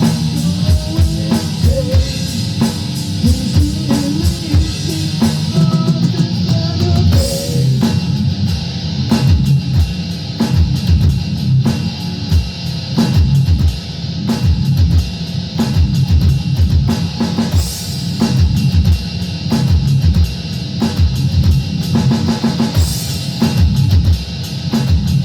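Rock music: an electric guitar riff over a drum kit with a steady, busy beat.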